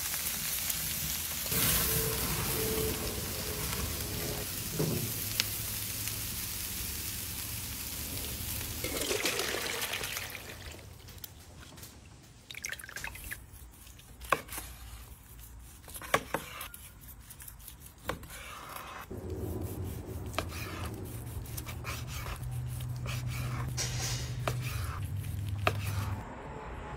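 Prime rib sizzling and hissing over a charcoal grill for about ten seconds. Then quieter knife work: a large knife slicing the cooked beef, with sharp taps and clicks on a cutting board. A low steady hum comes in for the last several seconds.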